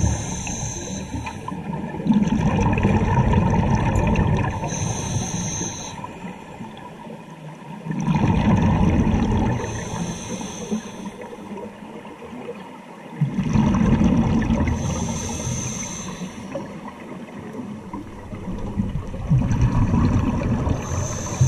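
Scuba diver breathing through a regulator underwater: a surge of bubbles rumbling and gurgling with each exhale, about every five to six seconds, with a short hiss of inhaling between.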